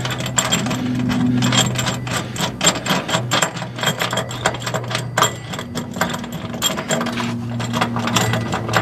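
Rapid metallic clicking and clinking of hand tools on a seat-belt anchor bolt's nut and washers, typical of a ratchet wrench running the nut on, with a steady low hum underneath.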